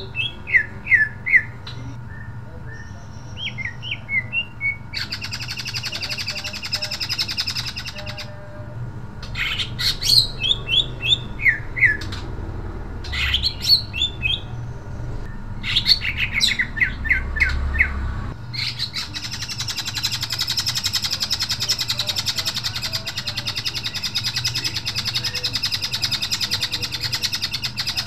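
Male cucak ijo (leafbird) singing loudly. Bursts of quick, sharp downslurred whistles alternate with long stretches of rapid, dense chattering warble; the longest chatter runs through the second half.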